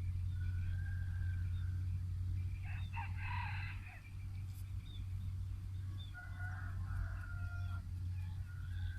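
Two drawn-out animal calls, each about a second and a half long, the first about two and a half seconds in and the second about six seconds in, over a steady low hum.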